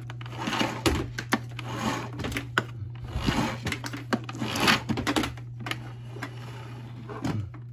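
Irregular clicks and rattling handling noises as a Bissell canister vacuum's power cord is pulled out of its cord reel and plugged in; the vacuum's motor is not running.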